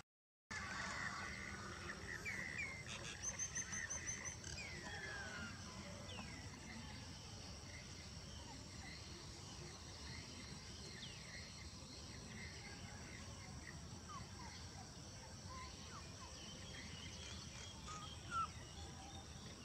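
Outdoor ambience: a steady high insect trill, with scattered short bird chirps over it and one louder chirp near the end. The sound drops out briefly at the very start.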